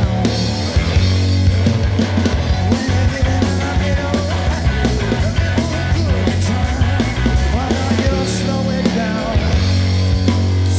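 Rock band playing a song together: Fender Telecaster electric guitar and electric bass over drums.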